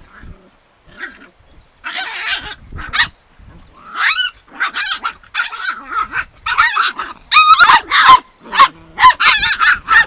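Puppies yipping and barking in quick, high-pitched bursts while play-fighting, faint at first and growing louder and more rapid partway through.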